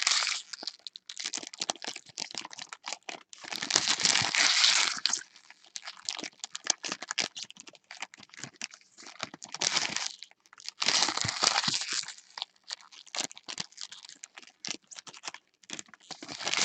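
Basketball trading card packs being opened: plastic-foil wrappers torn and crinkled in three longer bursts, with many short clicks and snaps between them.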